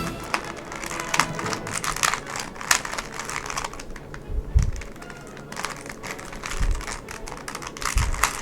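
Rubik's Cube being turned fast by hand: its plastic layers click and clack in quick, irregular runs, with a few dull knocks.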